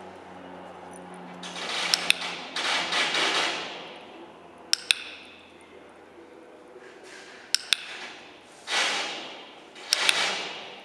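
A handheld training clicker clicking four times, each a quick double click from press and release, each followed by a brief rustle. These are the marker clicks of clicker training.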